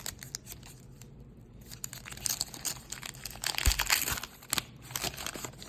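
Waxed-paper wrapper of a baseball card wax pack being torn open and peeled back, crinkling and crackling in irregular bursts, with a soft thump about three and a half seconds in.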